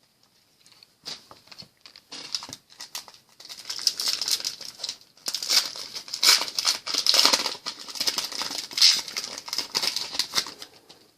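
Crinkling and tearing of a foil trading-card pack wrapper being opened by hand, a dense run of crackles that grows busier from about four seconds in.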